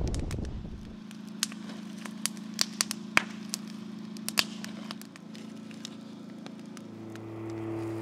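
Wood campfire crackling, with sharp pops and snaps scattered a few times a second over a faint steady low hum. Wind noise on the microphone fades out in the first second, and a steady low tone grows louder near the end.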